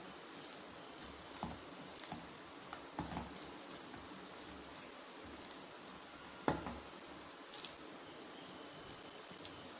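A loose dough of wheat flour, gram flour and semolina, mixed with coconut milk, being kneaded by hand in a steel bowl: faint squishing and pressing. A few light clicks and taps come through, the sharpest about six and a half seconds in.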